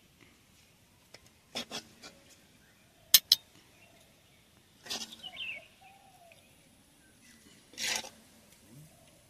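Metal utensils clinking and scraping while curry is served with a steel ladle from an aluminium pan into steel bowls. There are two sharp clinks about three seconds in and a short scrape near the end. A few faint bird chirps can be heard in between.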